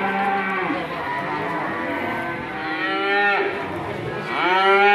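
Cattle mooing: three calls, one tailing off at the start, a short one about three seconds in, and a longer, louder one near the end.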